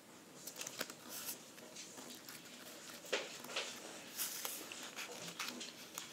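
Faint rustling and crackling of a sheet of paper being folded and creased by hand, in a few short scattered crackles.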